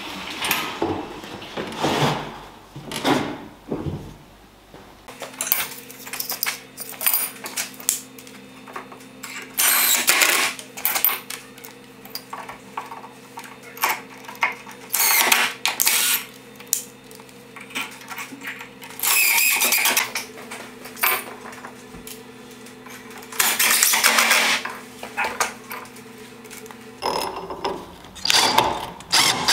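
Cordless drill-driver driving screws through steel clamping dogs into wood, in about four short runs of a second or so each. Metal clinks from handling the steel dogs and aluminium parts come between the runs. A steady low hum sits underneath from about five seconds in until near the end.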